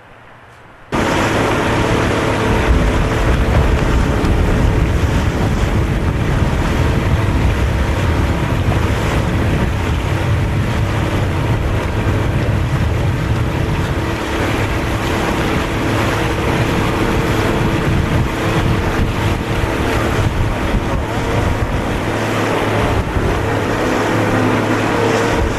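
Motorboat engine running steadily underway, with wind and water noise buffeting the microphone. It starts abruptly about a second in.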